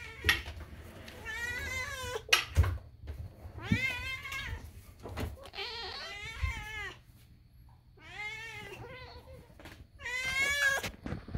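A cat meowing repeatedly: about five long, drawn-out meows with a wavering pitch, a second or two apart. A couple of sharp knocks come in the first few seconds.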